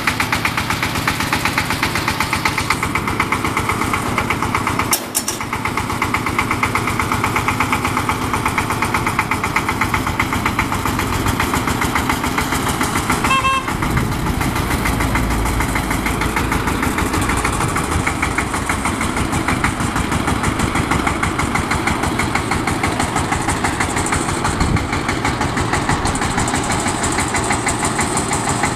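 Diesel engine of a four-wheel boom lift running steadily with an even chugging rhythm while the boom raises the work platform.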